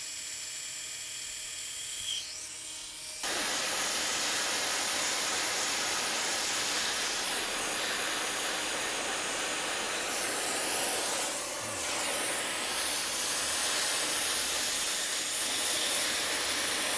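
A Dremel rotary tool with a small abrasive wheel runs steadily for about three seconds. Then an oxyacetylene torch flame comes in suddenly with a loud, steady hiss, heating a cracked steel part to braze it.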